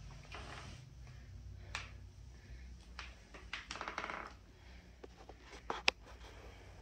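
Faint clicks and clinks of small objects being handled and set down, with a brief rattle about four seconds in and a sharper click near the end.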